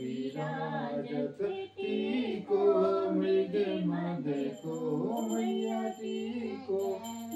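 Voices singing a Hindu devotional aarti in slow, held notes that glide between pitches, with faint high ringing in the second half.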